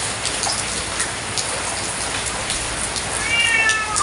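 Steady rain with scattered drips, and a domestic cat meowing once near the end: one long meow that falls in pitch.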